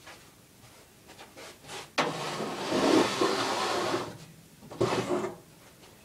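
Handling noise: a sudden knock about two seconds in, then about two seconds of loud scraping and rustling, and a shorter burst of the same about five seconds in.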